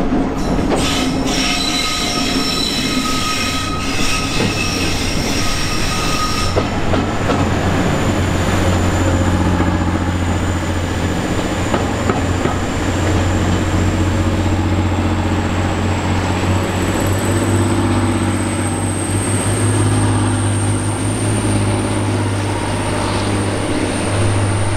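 Colas Rail Class 70 diesel locomotive 70805 running light past, with high-pitched wheel squeal on the curve for the first six seconds or so. Under it, from about three seconds in, the steady low drone of the locomotive's diesel engine, with a faint high whine that slowly rises in pitch through the rest.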